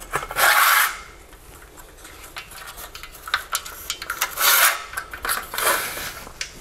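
Aluminium tripod stand of a dumpy level having its telescoping legs slid out after the locking nuts are loosened: metal sections rubbing and rasping against each other in three short bursts, about half a second in and twice more near the end, with small clicks between.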